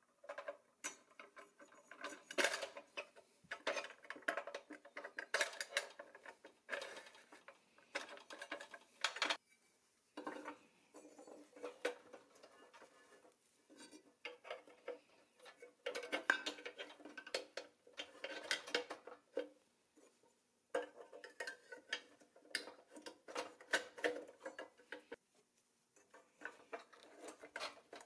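Pressed-steel parts of a 1950s Nylint toy dozer (track frame, wheels and steel axle rods) clinking and clattering as they are handled and fitted together by hand. Irregular light metal clicks and knocks, with a few short pauses.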